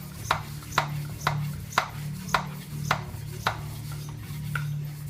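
Bontrager Flash Charger floor pump pumped by hand in quick, even strokes, about two a second, each stroke a sharp rasp as the air chamber is charged toward 160 psi for seating a tubeless tire. A steady low hum runs underneath.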